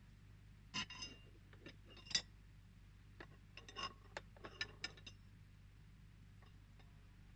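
Irregular sharp clicks and knocks of hard objects being handled, in two clusters, the loudest knock about two seconds in.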